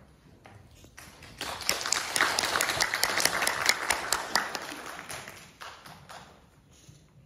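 Small audience applauding, swelling about a second and a half in and dying away over the next few seconds. A few footsteps on the stage floor come before it.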